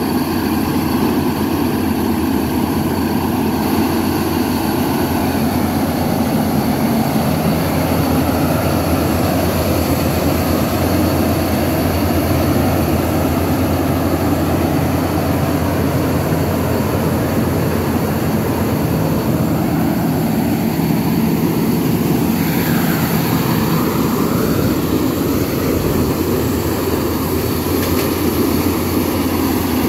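Corn combine harvester running loud and steady as it works through standing corn: an engine drone with a thin steady high whine above it.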